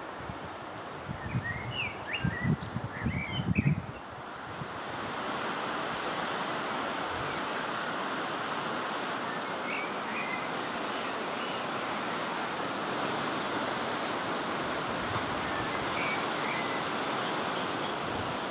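Woodland ambience with small birds chirping briefly a few times. For the first few seconds wind gusts buffet the microphone. About four seconds in, a steady, even rushing sets in and holds.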